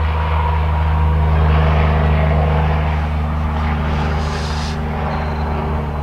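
Vehicle engine running steadily with a low, even hum, slowly easing in loudness in the second half.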